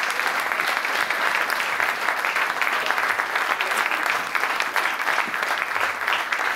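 Audience applauding: many hands clapping densely at an even level.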